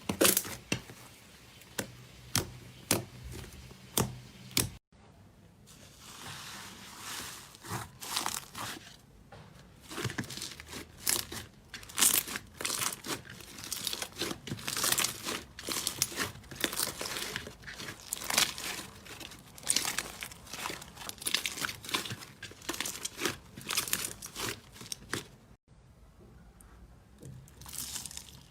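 Slime being squeezed, pressed and stretched by hand, giving dense crackling, popping and crinkling. The sound breaks off abruptly about five seconds in and again near the end, and starts up again after each break.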